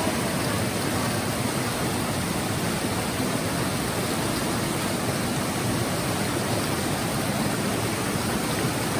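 Steady rush of a swollen river's fast-flowing water, an even, unbroken sound.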